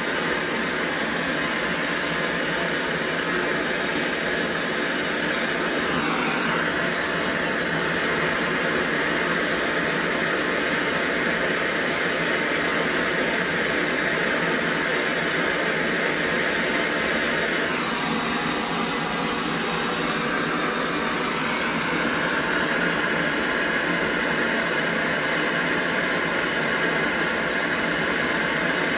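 Handheld gas torch burning with a steady, loud hiss as its flame heats a brass stove fuel tank for brazing. Its tone shifts briefly about six seconds in and again around eighteen seconds.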